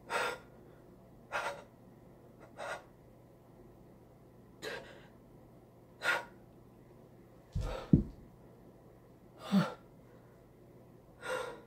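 A young man's heavy, gasping breaths, about eight in all at one- to two-second intervals. One or two breaths catch in his voice near the end: ragged breathing of distress.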